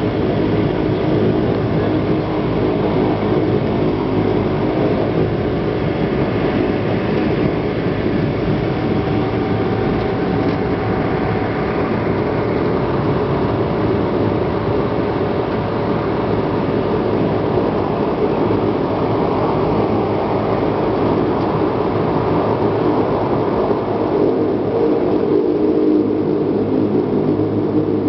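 Cabin noise of a Dash 8 twin-turboprop airliner: a steady drone from its turboprop engines and propellers, with a few faint steady hums in it.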